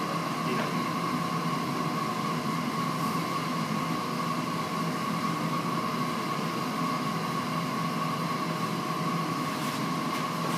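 A steady mechanical hum with a constant high whine, like a machine running continuously.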